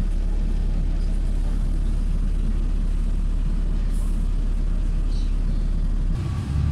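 Double-decker bus's diesel engine running with a steady low rumble, heard from inside the bus. About six seconds in, the engine note shifts and grows louder as the bus moves off.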